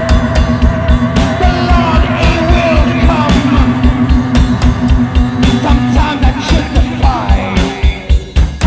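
A garage-rock duo's electric guitar and drum kit playing a song live in a small rehearsal room, over a fast, steady kick-drum beat. The band drops out for a moment near the end, then comes straight back in.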